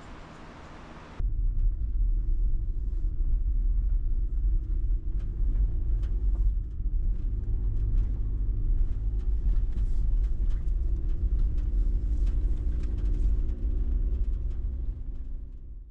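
Car on the move: a steady low road-and-engine rumble with light rattling ticks, starting abruptly about a second in after faint outdoor hiss.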